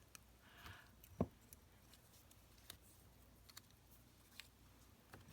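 Near silence with a few faint taps and clicks of paper and small tools being handled on a craft table, one sharper click about a second in.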